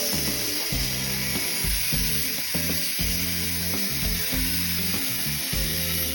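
Background music with a steady beat of about two thumps a second and a stepping bass line, under a bright steady hiss.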